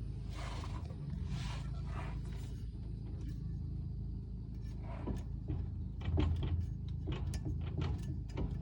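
Scattered light knocks and rustles of hands working at a car's underside driveline, over a steady low hum. There is no regular clicking.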